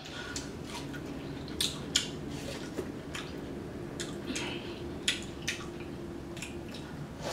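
Wet chewing and mouth smacks from eating juicy cantaloupe slices: a scatter of short, soft clicks and squelches at uneven intervals.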